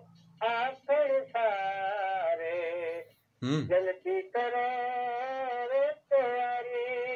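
A caller singing over the phone line: one voice holding long notes with a wavering pitch, in phrases broken by short breaths.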